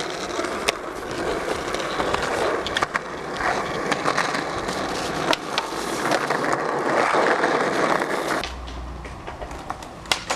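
Skateboard wheels rolling on rough asphalt, with sharp clacks of the board hitting the ground. A louder scraping rush in the middle comes from the board grinding along a ledge. The noise breaks off abruptly about eight and a half seconds in, leaving a quieter background with a few sharp clacks near the end.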